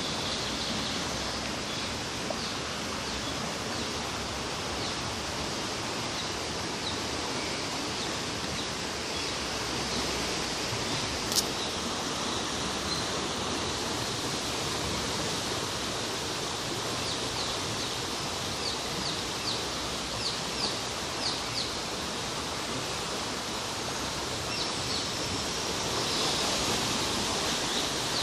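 Receding floodwater running across a park lawn in a steady rush. A bird chirps in short repeated notes now and then, and a single sharp click comes about eleven seconds in.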